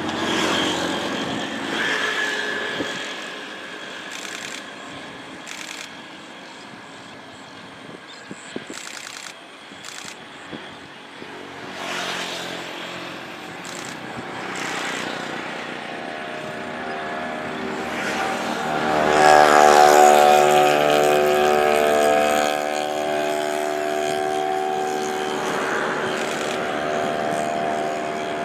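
Engine noise from passing motor vehicles, one swelling to its loudest as it passes close about 19 to 22 seconds in.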